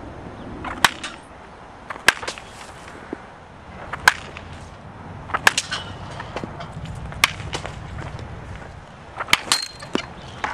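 Baseball bat hitting a run of balls in batting practice: sharp cracks about every one and a half to two seconds, a few followed by a quick second knock.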